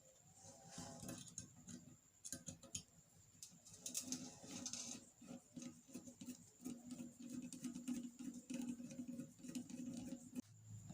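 A screwdriver tightening the screws on an electric kettle's base: faint, irregular small clicks and scratchy ticks.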